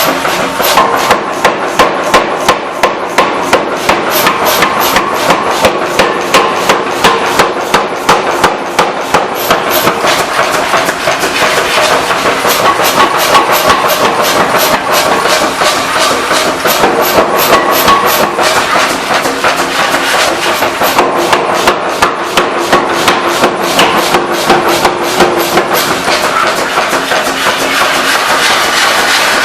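Steel being forged with rapid, evenly spaced hammer blows, about two to three a second, in the repair of a breaker chisel tip. The blows sound over a steady machine hum.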